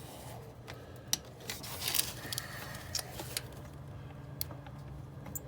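Light metallic clicks and short scrapes of the thermostat housing bolts being handled and started into their threads by hand, with sharper clinks about one, two and three seconds in.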